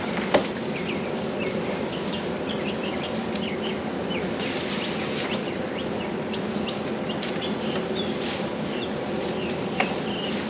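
Birds chirping in short, repeated calls over a steady low mechanical hum, with a sharp click just after the start.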